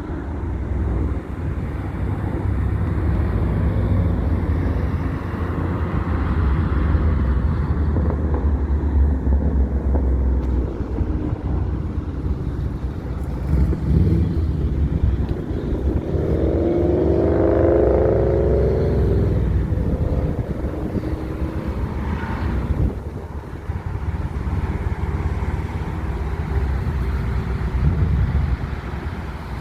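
Loud, steady low rumble of aircraft jet engines, with a brief cluster of higher engine tones about halfway through.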